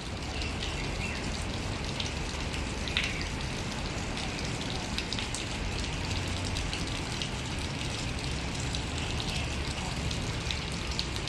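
Small fountain jets splashing into a pond: a steady patter of falling water.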